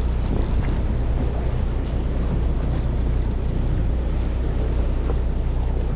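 Steady low drone of a fishing boat's engine running, with wind and sea noise.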